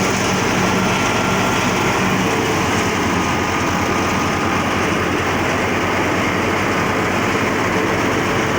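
Tractor-powered wheat thresher running steadily, a loud, even mechanical noise of the engine and the threshing drum.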